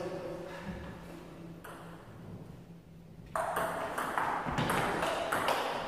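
Table tennis rally: the celluloid ball clicking sharply off the bats and the table in a quick, regular series of hits, a few per second, starting about halfway through after a quiet moment before the serve.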